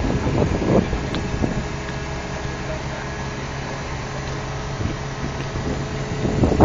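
Crane engine running steadily, a low even hum.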